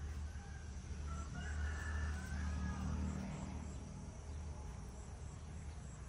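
A rooster crowing once, faintly, starting about a second in, over a steady low rumble.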